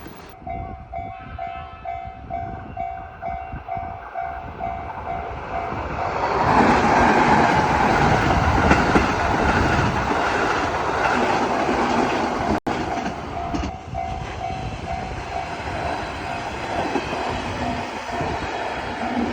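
Japanese railway level-crossing warning bell ringing a steady kan-kan, about two strikes a second. About six seconds in, a train passes the crossing and is loud for about eight seconds, covering the bell, which is heard ringing on after it.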